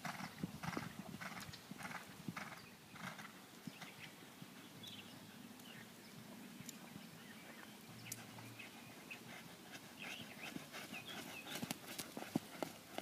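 Hoofbeats of a German Riding Pony moving in a steady rhythm on an arena's sand footing, about two and a half strikes a second. The strikes are plainer for the first few seconds, faint in the middle, and sharper again near the end as the pony passes close.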